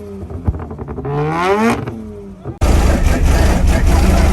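Car engine revved, its pitch rising and then falling. About two and a half seconds in, the sound cuts abruptly to a much louder, steady low rumble.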